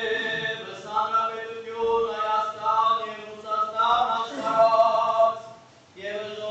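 Male voices chanting an Armenian church hymn, the melody moving over a steadily held note. The chant breaks off briefly about five and a half seconds in and picks up again.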